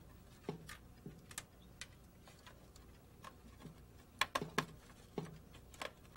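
Faint, scattered clicks and taps of cables being pulled free of the plastic cable clips on a LaserWriter Pro's laser scanner assembly, with a quick run of louder clicks a little past four seconds.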